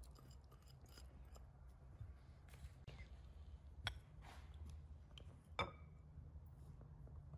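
Quiet kitchen handling sounds over a low steady hum: a small ceramic bowl set down on the table with a sharp click, then a second sharp click a couple of seconds later as the plastic lid of a spice jar is snapped open. Fainter ticks from handling come in between.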